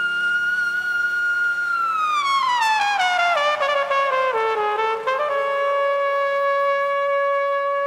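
Flugelhorn solo: a held high note, then a run of notes stepping down over about three seconds, then a small leap up to a long held note that closes the phrase, over a soft sustained chord in the accompaniment.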